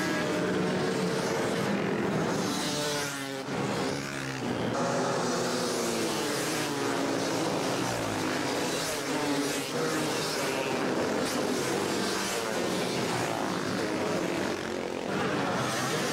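A pack of dirt bikes racing together, many engines at once, each revving up and falling back so the pitches rise and fall over one another.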